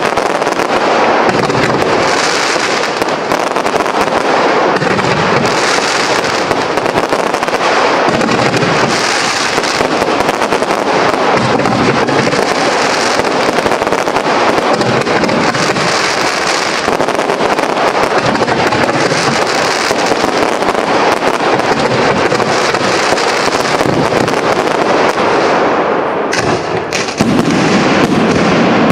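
Professional aerial fireworks display: an unbroken barrage of shells bursting, with a few sharp bangs and a louder stretch near the end.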